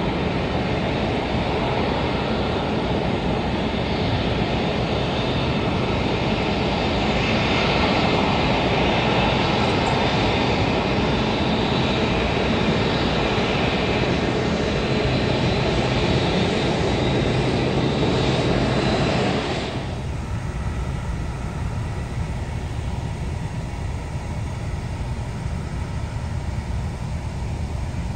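Airbus A380 taxiing at close range: the steady roar of its four jet engines at taxi power, with a faint high whine on top. About two-thirds of the way through, the sound drops suddenly to a quieter, duller rumble.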